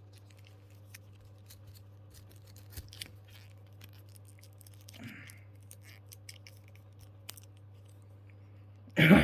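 Quiet room tone with a steady low hum and scattered faint clicks, and a short loud burst of noise about nine seconds in.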